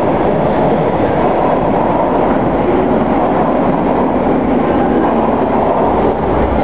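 TTC streetcar rolling slowly up to the platform in an underground station: a steady rumble of its wheels on the rails.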